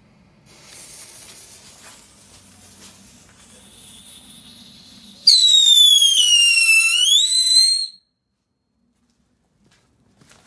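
A small Funke category 1 ground firework hissing as it sprays sparks. About five seconds in it breaks into a loud whistle that dips in pitch and rises again for two or three seconds, then cuts off suddenly.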